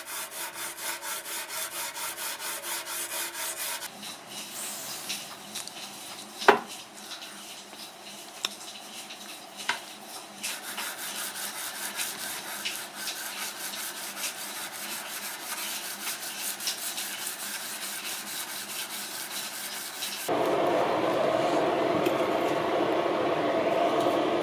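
Rhythmic rubbing or abrasive strokes, about five a second at first, then more irregular, with scattered light clinks and one sharp knock about six and a half seconds in. Near the end it switches abruptly to a louder, steady noise.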